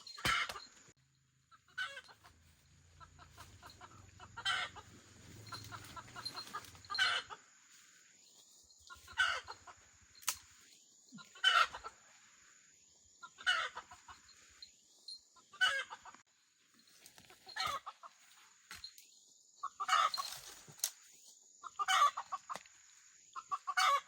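Chickens clucking, a short loud call about every two seconds.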